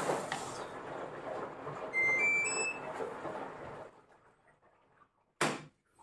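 Manfield MFWD-1410-6S04 washer-dryer running with a steady rush of water, then three rising electronic beeps from its control panel about two seconds in, the sign that it has been paused. The water noise stops about a second later, and a single short click follows near the end.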